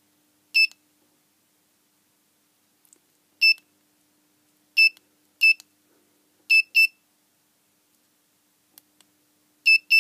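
Buzzer on a DIY digital clock kit giving short high beeps as its push buttons are pressed: eight in all at uneven intervals, two of them in quick pairs, the last pair near the end. A faint steady low hum runs underneath.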